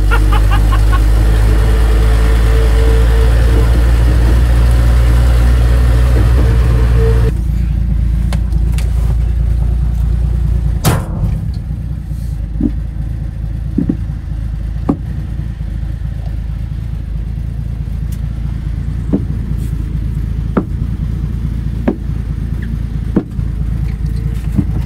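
1966 Ford F350 pickup running, heard from inside the cab: a loud steady low drone with a slowly rising whine for about the first seven seconds, then it drops suddenly to a quieter rumble with scattered knocks and rattles, the sharpest about eleven seconds in.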